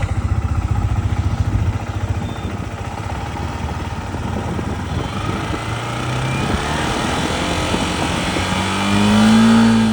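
Yamaha MT-15's single-cylinder engine running, then revved up steadily over the last few seconds, its pitch climbing to a peak near the end and starting to drop back.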